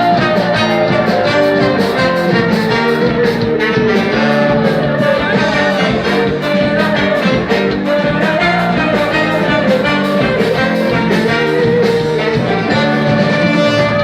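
Live band music with a steady beat and a held melody line.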